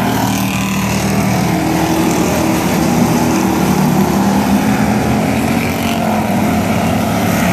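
A field of pure stock race cars running laps together on an oval, several engines at racing speed at once, their pitches shifting as cars come by close and draw away.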